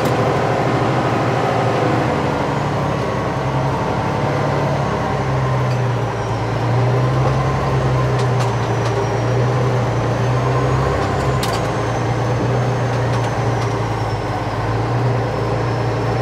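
Fire tanker truck's engine running steadily as the truck drives slowly, a continuous low hum.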